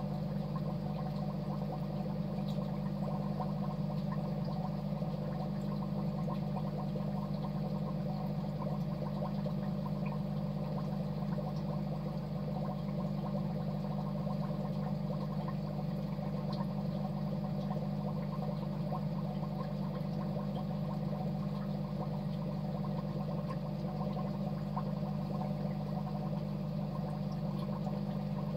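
Aquarium water bubbling and gurgling steadily over a constant low hum.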